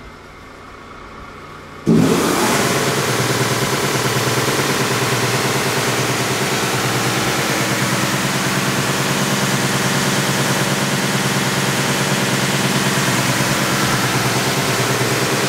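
The sanding head of an AEM 36-inch wide belt sander, built by Timesavers and driven by a 20 hp main motor, switches on about two seconds in with a sudden jump in level, then runs steadily: an even whir over a low hum. Before it starts only a faint low hum is heard.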